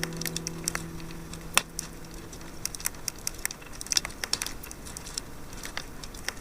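Wood campfire crackling, with irregular sharp pops and snaps over a soft hiss. A held acoustic guitar chord dies away in the first second or so.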